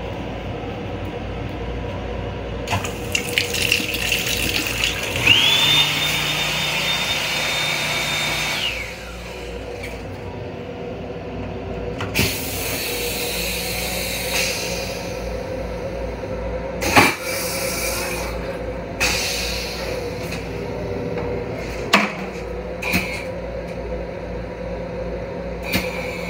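An M7 commuter railcar's steady running rumble. Over it, the restroom sink unit runs with a rushing noise and a whine that rises, holds high for a few seconds and winds down. Later come several sharp knocks and clunks.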